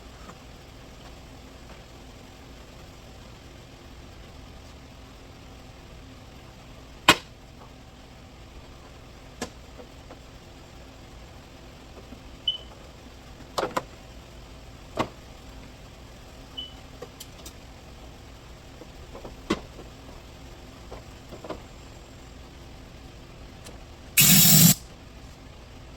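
Work noises in a garage over a steady background hum: scattered clicks and knocks of parts and containers being handled. A loud, short burst of hiss comes near the end, lasting about half a second.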